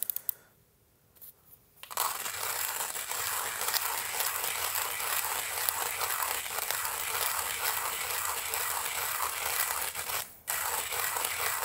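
1ZPresso K-Plus hand coffee grinder, its 48 mm stainless steel burrs crushing coffee beans at a filter grind setting as the crank is turned: a steady, dense crunching. It starts about two seconds in after a few light clicks, and breaks off for a moment near the end before going on.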